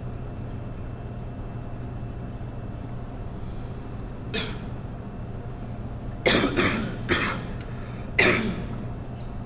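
A person coughing: one light cough about four seconds in, then a quick fit of three or four coughs, and a last hard cough near the end, over a steady low hum.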